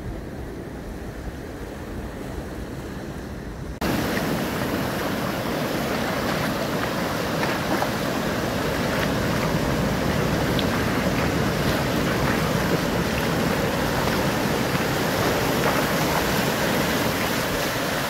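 Ocean surf: a steady wash of breaking waves, with wind on the microphone. The sound becomes abruptly louder and fuller about four seconds in.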